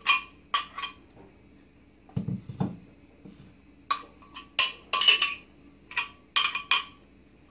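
A metal spoon scraping and clinking against the inside of a blender jar as thick batter is scooped out, a run of short sharp clinks, with two duller knocks about two seconds in.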